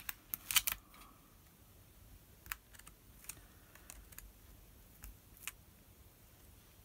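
Light clicks and taps of hands pressing a card-stock layer down onto a card base and handling the card. A quick cluster comes in the first second, then single taps every second or so.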